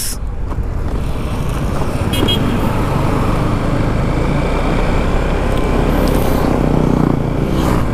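Yamaha XMAX 300 scooter's single-cylinder engine running as it is ridden along the road, under a steady rush of wind and road noise.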